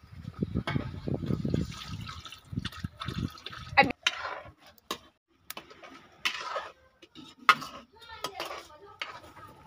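Liquid poured from a large aluminium pot into a steel kadai of pav bhaji, with a few sharp metal knocks of the pot and tongs against the pan.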